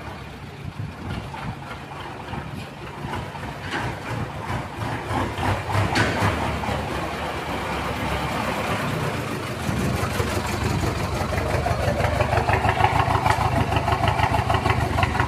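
Diesel engine of a small flatbed truck running as the truck pulls up at low speed, growing louder, then a steady diesel clatter close to its exhaust pipe over the last few seconds.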